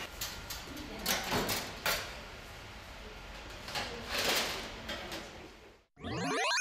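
Clatter of stainless steel food pans and lidded containers being handled and set down in a kitchen, with knocks and scrapes about a second in and again around four seconds. Near the end comes a short rising swoosh sound effect.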